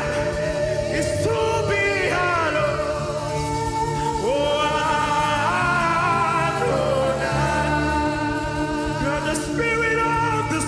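Live gospel worship music: keyboard, bass and drums playing steadily under a voice singing wordless, sliding runs with vibrato.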